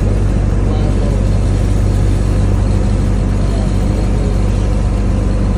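River boat's engine running with a steady low drone.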